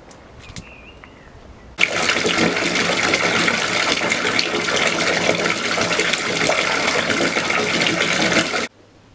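Bath tap running full into shallow water in a bathtub: a loud, steady splashing gush that starts abruptly about two seconds in and cuts off sharply near the end.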